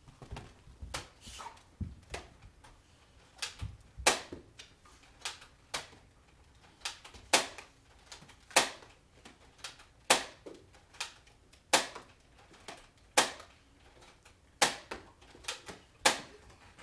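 Nerf blaster being fired again and again, a sharp snap about every second and a half, with fainter clicks in between.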